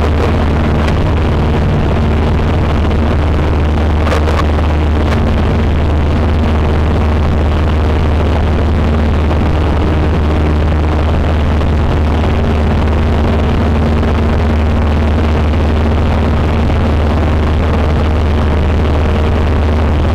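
Cessna 150's four-cylinder piston engine and propeller running at a steady, unchanging drone.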